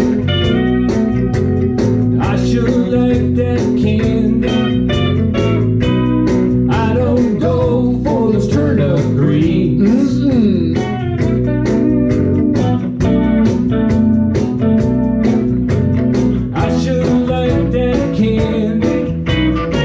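Live band playing amplified electric guitars at a steady rhythm, with notes bent up and down through the middle of the passage.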